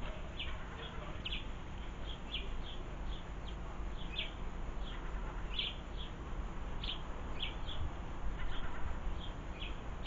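House sparrows chirping, a run of short, sharp calls at about two or three a second, over a steady low rumble.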